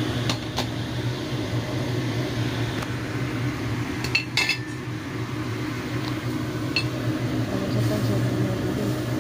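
A metal utensil clinks against a cooking pot a few times while vegetables go into boiling water for instant noodles. The clinks come in a short cluster about four seconds in and once more near seven seconds, over a steady low hum.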